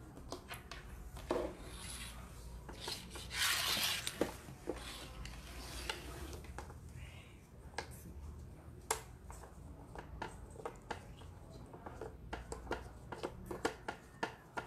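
Plastic Othello discs clicking as they are set down and flipped over on the board, a scattered run of light clicks that comes thicker in the second half. A brief rubbing scrape sounds about three and a half seconds in.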